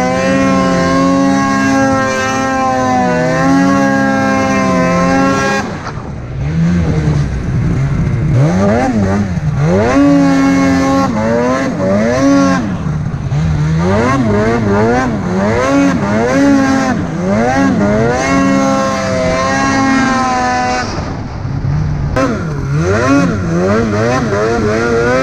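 Polaris Matryx RMK 850 snowmobile's two-stroke twin engine running at steady high revs, then revving up and down again and again from about six seconds in as it is throttled through deep snow.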